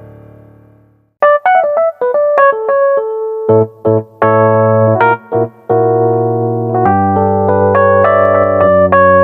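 Roland Fantom-06 synthesizer workstation playing a piano-like keyboard preset. After a ringing note dies away and a brief gap, quick short notes give way to chords over a bass line, then longer held chords.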